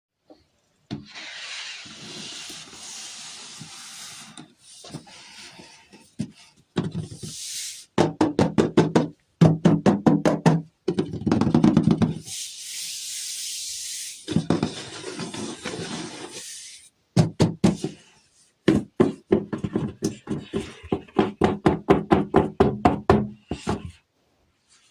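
Plastic toy packaging being handled: stretches of crinkling plastic and runs of rapid tapping clicks, about five a second.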